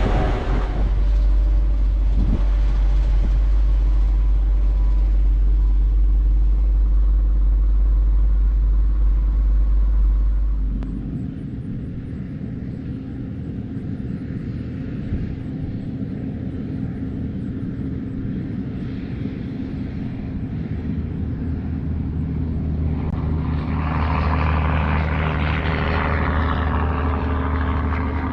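Truck engine running steadily with a deep drone. About eleven seconds in it changes abruptly to a quieter, higher hum, and a rushing noise builds near the end.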